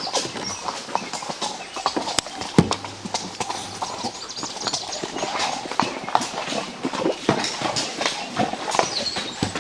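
Horses' hooves clip-clopping on the ground during a ride, a few uneven hoof strikes each second.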